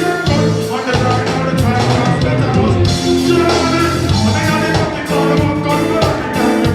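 Live reggae band music with a steady beat and a strong bass line.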